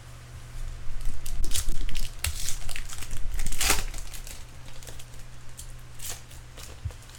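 A trading card pack wrapper being torn open and crinkled, in a run of crackly rustles that is loudest in the first half and trails off into a few last crinkles near the end, over a low steady hum.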